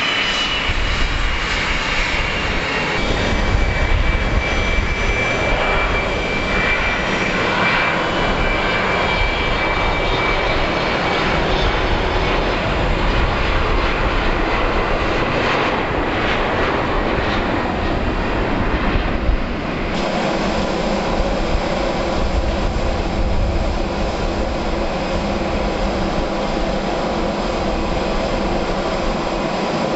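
Jet aircraft engines running: a steady rushing noise with a high, thin turbine whine over it in the first half, the sound changing abruptly about two-thirds of the way through as another aircraft is heard.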